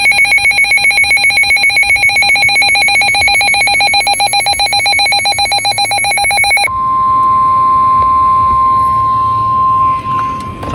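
Weather radio alert: an electronic alarm beeping rapidly for about seven seconds, then switching to one steady single-pitched tone, the NOAA Weather Radio warning alarm tone that signals a new warning is about to be broadcast.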